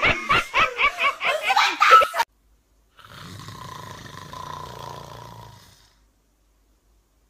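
A person laughing in quick bursts for about two seconds, ending on a higher note and cutting off abruptly. After a short gap comes a fainter, steady noise with a low hum lasting about three seconds.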